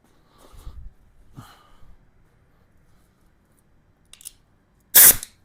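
A few soft knocks and clicks of handling, then a short, loud blast of compressed air hissing from the air hose about five seconds in, lasting under half a second.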